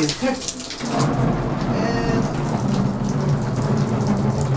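Water running from a bathtub faucet and splashing into the tub and onto a screen-printing screen, rinsing out the uncured photo emulsion. The steady running and splashing starts about a second in.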